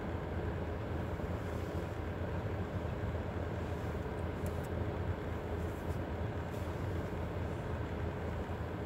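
Steady low rumble and hiss inside a car's cabin, with a few faint ticks about halfway through.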